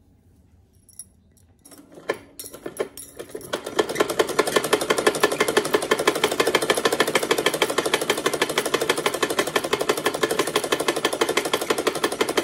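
Usha sewing machine stitching through cloth. A few clicks come about two seconds in as it is set going. It then picks up speed and settles into a fast, steady rattle of needle strokes.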